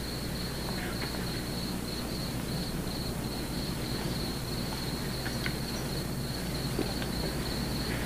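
Crickets chirring steadily in one continuous high trill, over a low steady electrical hum. A few faint clicks come through now and then.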